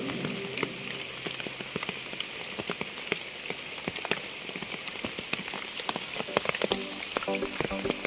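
Heavy rain pattering steadily in a rainforest, with many separate drops tapping close by. About seven seconds in, a run of short, repeated pitched calls joins in.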